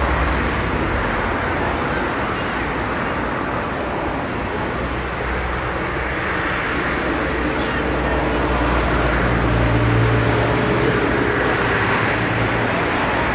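Steady outdoor background noise: a continuous low rumble with hiss, and a low hum swelling briefly about two-thirds of the way in.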